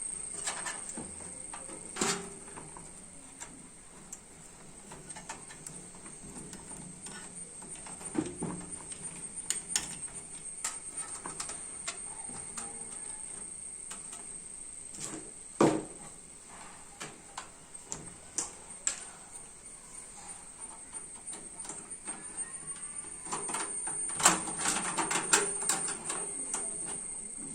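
Scattered light clicks and knocks of computer hardware being handled during a PC build, with a sharper knock about halfway and a busier run of clicks near the end, over a steady high-pitched whine.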